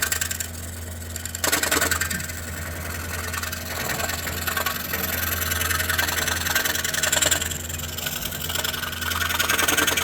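DeWalt scroll saw running, its reciprocating blade cutting through wood with a steady low hum under a rasping cutting noise. The cutting noise drops away briefly about half a second in, then comes back.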